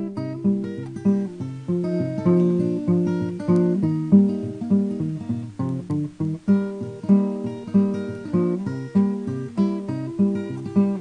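Acoustic guitar playing an instrumental break in a folk song, with steady, evenly paced picked notes and chords.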